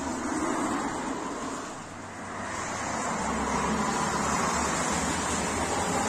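Street traffic noise, dipping briefly just before the middle and then rising again.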